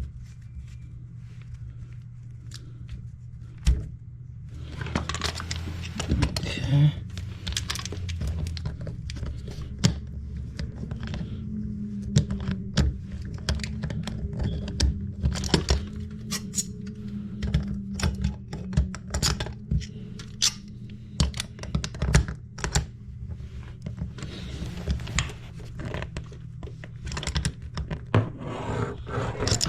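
Irregular knocks, clicks and scrapes of toilet parts and a water supply line being handled and fitted by hand, over a steady low hum.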